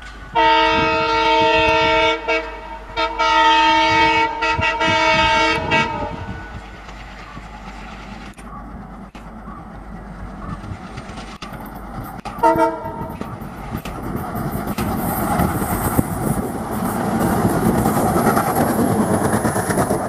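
WDM3D ALCO diesel locomotive sounding its horn in a long blast, broken twice, for about six seconds as it approaches, then a short toot about twelve seconds in. The rumble and wheel clatter of the train then swell as the locomotive and coaches run past.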